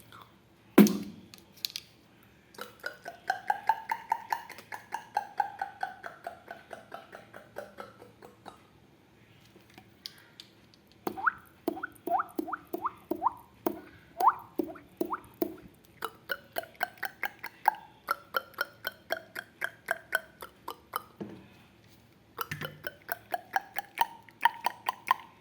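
Beatboxer imitating dripping water with the mouth: rapid clicks, several a second, whose pitch sweeps slowly up and then down, then a run of separate drop-like plinks that each fall in pitch. The clicking stops twice for a second or two.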